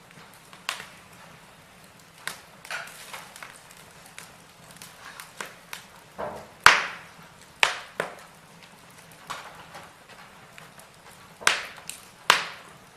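Wood fire in a fireplace crackling, with irregular sharp pops; the loudest pops come about halfway through and near the end.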